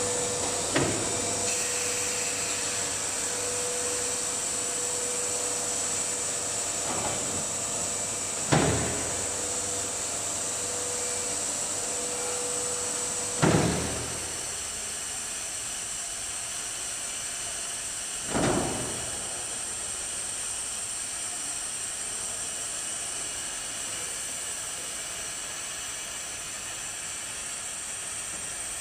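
Automatic nesting CNC router's panel-loading system at work: a steady machine hum and hiss, broken by five short, sudden bursts from the pneumatic loading and pushing gear. A steady hum tone in the noise stops about halfway through.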